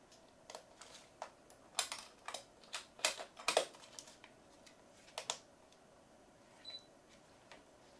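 A string of small clicks and knocks as a Canon EF-S 10–18 mm lens is twisted onto a Canon EOS 40D body's lens mount and the camera is handled, loudest about three seconds in. A faint short high beep follows near the end.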